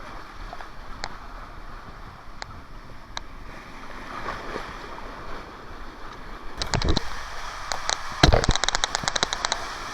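Water rushing along a water-park tube slide under a riding tube, with a few isolated clicks early on. From about six and a half seconds in there is a rapid clatter of sharp knocks that lasts nearly three seconds.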